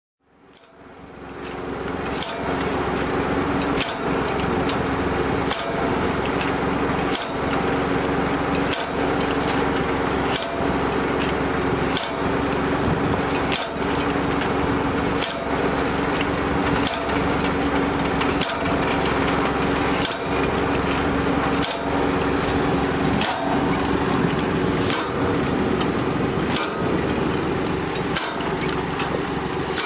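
Engine of the tractor pulling a Model 912 plastic mulch transplanter running steadily, fading in over the first two seconds. Over it comes a sharp clack about every second and a half from the transplanter's planting mechanism as it turns.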